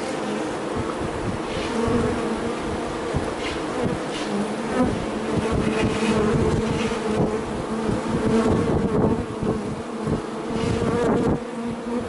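Honeybees buzzing around an opened hive, a steady hum with individual bees passing close, their pitch wavering up and down.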